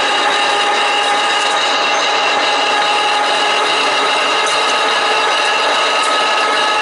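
TOS SKJ-8 CNC vertical turret lathe running: a steady, loud grinding noise with several steady high whining tones on top.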